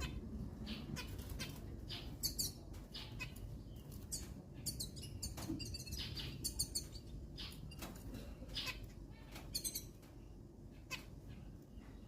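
Zebra finches calling: short, high calls repeated irregularly, with a steady low rumble underneath.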